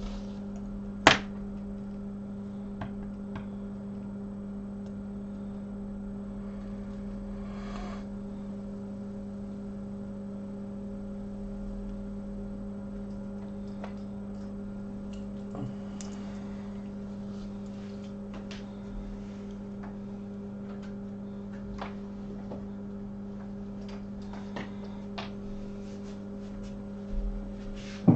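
Steady low electrical hum of repair-bench equipment, with scattered faint tool taps and one sharp click about a second in.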